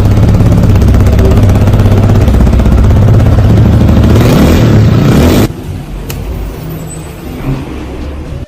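Loncin CR250 motorcycle's 249 cc four-stroke engine running loud, then dropping abruptly to a much quieter steady run about five and a half seconds in.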